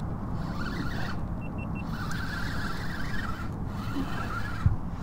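An engine running steadily with a low hum.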